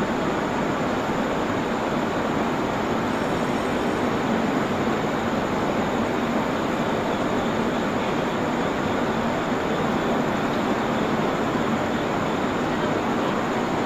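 Steady, even noise of a train, holding at one level with no change in pitch or loudness.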